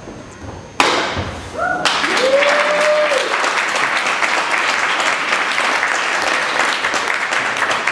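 A sharp crack of a taekwondo kick breaking a held board less than a second in, followed by a short shout, a held cheer and steady audience applause.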